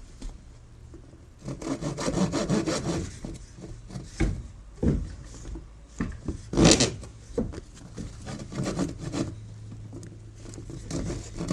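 A saw cutting through a wooden dowel rod in short bursts of quick back-and-forth strokes, with pauses between the bursts.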